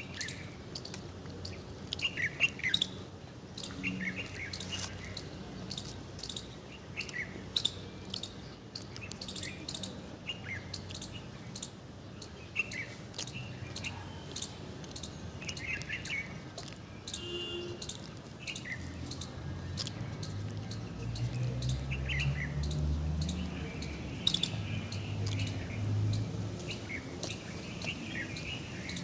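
Wild forest birds chirping and calling in short, scattered calls, with small clicks among them. A low rumble swells up under the birdsong during the second half.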